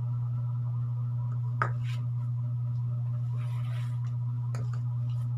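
A steady low hum, with two light knocks about one and a half seconds in as a bowl of food is set down and a kitchen knife picked up.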